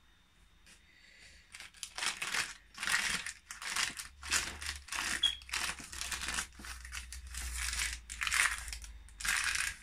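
Paper cake liner and baking paper crinkling and rustling as hands peel and pull them from around a cake. The rustles come in irregular bursts, starting about a second and a half in.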